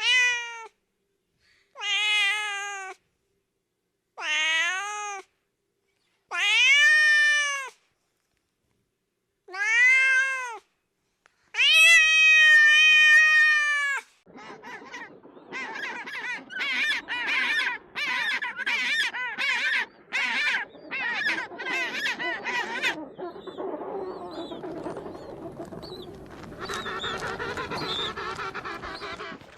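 Domestic cat meowing six times, each meow a separate call rising and falling in pitch, the last one longest. It is followed by a different, unidentified sound: about a dozen short pulses in a row, then a rougher, continuous stretch near the end.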